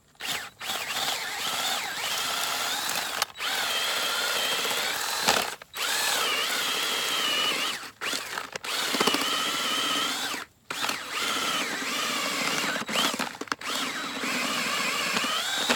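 Power drill turning a bulb-planting auger bit down into the soil beside an earth anchor to loosen it; the motor whine wavers in pitch and stops briefly several times.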